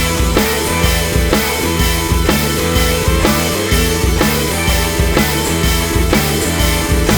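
Background rock music with a steady drum beat, about two hits a second.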